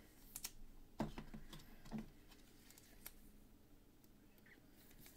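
Faint handling of trading cards: a few soft clicks and taps spread over the seconds, with near silence between them.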